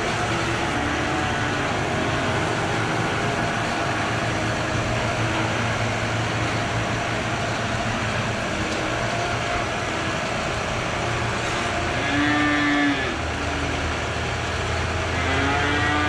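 Holstein dairy cows mooing, one long moo about twelve seconds in and another near the end, with fainter calls earlier, over the steady running of a tractor engine.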